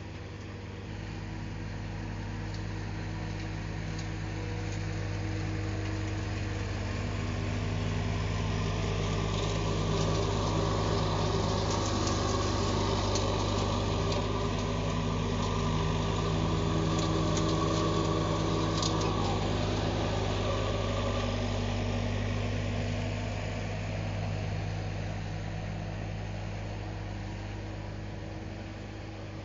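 Steiner articulated lawn tractor with a front mower deck running steadily, growing louder as it comes near and fading as it moves away. A few faint clicks are heard while it is closest.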